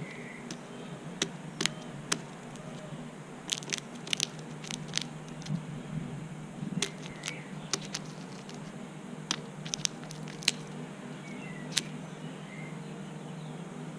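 Irregular sharp taps and clicks of a crow's beak pecking at peanuts on a bird feeder, in little clusters, over a steady low hum. A few faint high chirps come in now and then.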